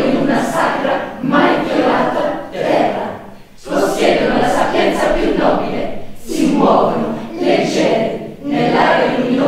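A chorus of voices singing together in short phrases of about a second or so, with brief breaks between them.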